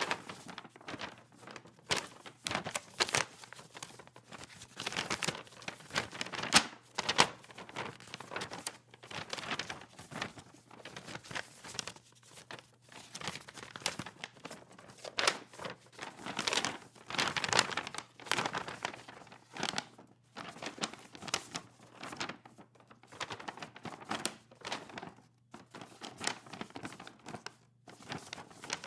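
A single sheet of paper being handled and shaken: irregular crinkling and rustling bursts with short pauses between them.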